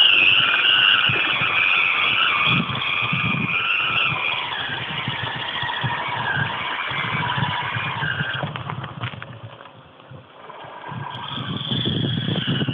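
Electric motor and gearbox of a 1/6-scale RC rock crawler whining as it climbs over rock, the pitch wavering with the throttle. The whine fades about nine seconds in and picks up again near the end.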